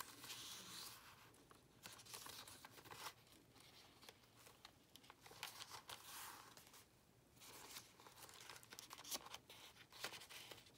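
Faint rustling and crinkling of paper journal pages being turned and handled, with small taps and clicks.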